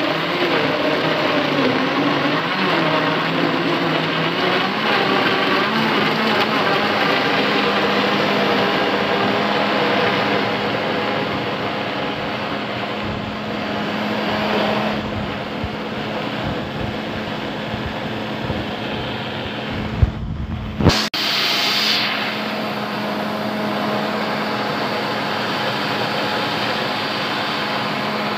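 Silver Crest high-speed blender running steadily, pureeing chunks of apple, banana and orange into juice, with a constant motor hum under the churning. About two-thirds of the way through, two sharp knocks and a brief dip break the steady run.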